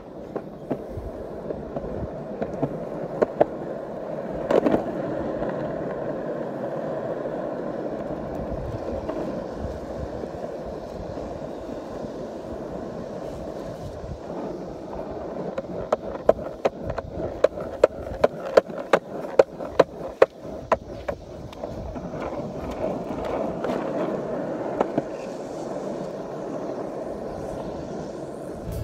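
Skateboard wheels rolling on concrete pavement, a steady rumble. In the middle stretch there is a run of sharp clicks, about two or three a second.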